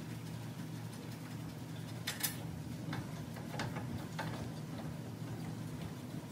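A few sharp metallic clicks and clinks from hand tools working on the front brake caliper bracket bolts, over a steady low hum. The loudest click comes about two seconds in.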